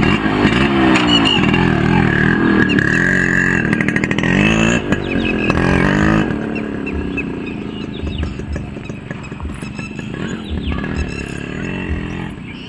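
Yamaha RX100 two-stroke single-cylinder motorcycle engine revving up and down repeatedly as the bike pulls away over rough ground. It gets quieter after about six seconds as the bike rides off.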